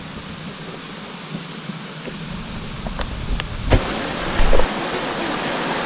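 Steady rush of a waterfall, swelling a couple of seconds in, with a sharp knock and then a short low thump of the microphone being handled midway through.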